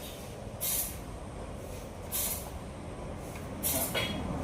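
Sawmill machinery running with a steady low rumble, cut by a short hiss about every second and a half, three times.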